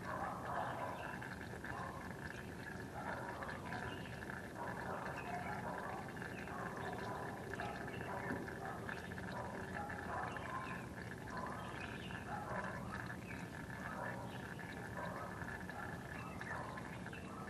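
Warm engine oil draining steadily out of a 2012 Mazda 3's oil pan in a free-flowing stream, with a faint steady hum underneath. The engine was warmed up first, so the oil flows out easily.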